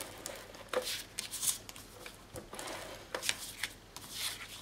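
An ATG adhesive tape gun laying tape on cardstock, with paper being handled: irregular rustles and light clicks.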